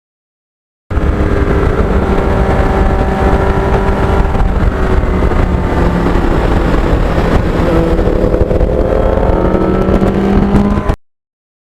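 Kawasaki GPX750R inline-four motorcycle engine running under way, with heavy wind rumble on the microphone; its pitch climbs gradually in the last few seconds as the bike accelerates. The sound starts and cuts off abruptly.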